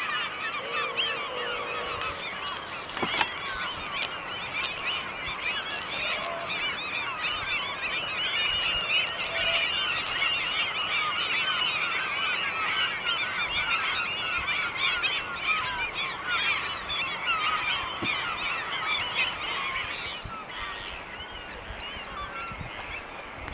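A huge flock of gulls calling all at once, a dense din of overlapping cries from birds massed to feed on a hooligan (eulachon) run. The chorus thins out and drops a little near the end.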